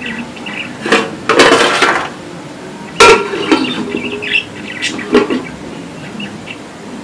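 Metal cookware clattering: an aluminium lid set onto a cooking pot and a metal ladle knocking on it, in a few sharp clanks with a short ring.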